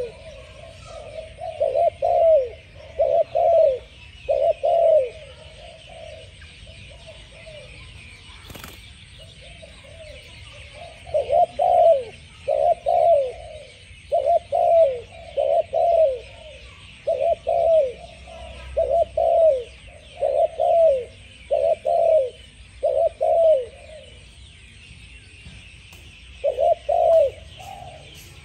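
Spotted dove cooing: repeated phrases of low coo notes that each drop in pitch, sung in groups of two or three, with a pause of several seconds about a third of the way through before the cooing resumes.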